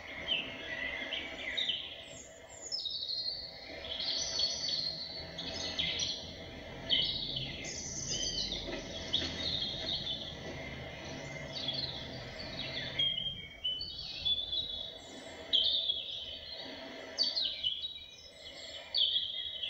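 Many birds chirping and singing in short, quick whistled phrases, over a low steady background hum, heard through a television's speaker.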